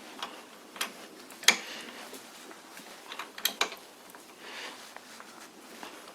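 Sharp clicks and knocks of hand tools being handled and set down, the loudest about a second and a half in and a quick cluster of three a little after three seconds.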